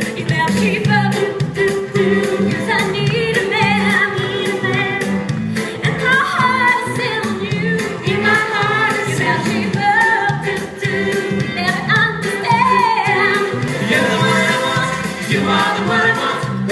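Live stage musical number: several voices singing together over a backing track with a steady beat.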